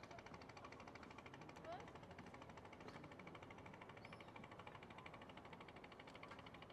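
Near silence: faint background with a rapid, even ticking pulse, a short rising chirp near the two-second mark and a brief high tone about four seconds in.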